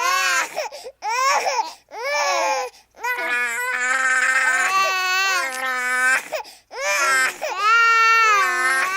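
Newborn baby crying: a run of loud, high-pitched wails that rise and fall, with short catches of breath between them and one long, drawn-out wail in the middle.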